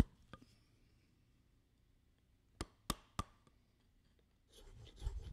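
Three sharp knocks about a third of a second apart, a little past halfway, typical of a round wooden mallet striking a carving chisel into a laminated wood gun stock, after a couple of light clicks at the start. Near the end a hand tool starts scraping across the wood in repeated strokes.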